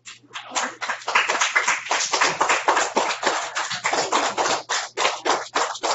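A small group of children clapping, a dense quick patter of hand claps that starts just after the name is read out.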